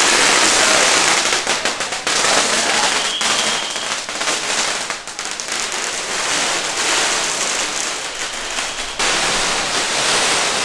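Strings of firecrackers going off: a dense, rapid crackle of small bangs that keeps up throughout, shifting abruptly about two seconds in and again near the end.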